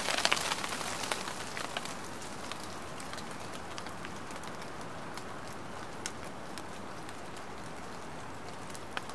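Light rain falling: a steady hiss of fine pattering drops, with a flurry of louder, closer drops in the first second and single sharp drops about six and nine seconds in.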